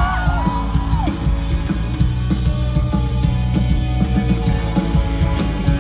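Instrumental intro of a pop-rock song: a band playing with a steady drum and bass beat.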